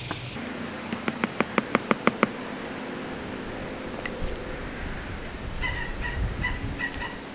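Woodland birds calling: a quickening run of about ten sharp, knocking notes, then near the end a short clear note repeated several times a second.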